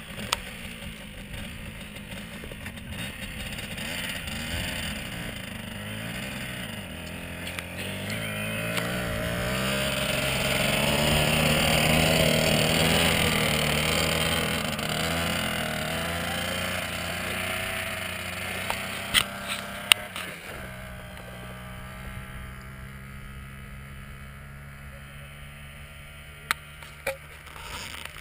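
Dirt bike engine running and revving as it tows a skier across snow, its pitch rising and falling, loudest about halfway through, then dropping to a steadier, quieter hum as it moves away. A few sharp clicks come about two-thirds of the way in and again near the end.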